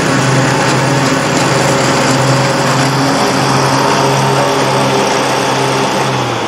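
Predator 670 22 hp V-twin engine on a Grasshopper 718 zero-turn mower running steadily as the mower drives across the field, passing close by near the end.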